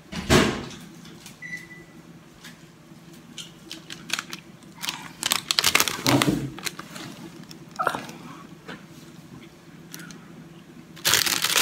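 A paper bakery bag with a plastic window crinkling and rustling as a cookie inside it is handled, with the densest crinkling near the end. A sharp knock comes about half a second in, and small clicks and knocks are scattered between.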